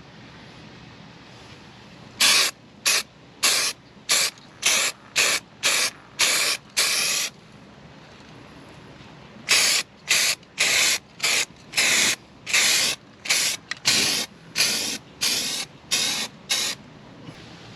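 Footsteps crunching on a loose surface at a steady walking pace: about nine steps, a pause of about two seconds, then about a dozen more.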